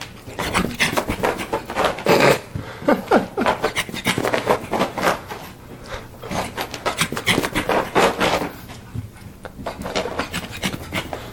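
Pug puppy running laps over couch cushions and carpet: a rapid, irregular scrabble of paws scuffing and thumping on fabric, easing briefly about nine seconds in.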